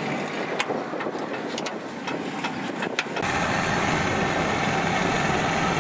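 Kubota DC70 combine harvester's engine running, with several sharp metallic clicks in the first three seconds. About three seconds in the engine sound turns suddenly louder and fuller, running steadily as the combine drives through the muddy paddy.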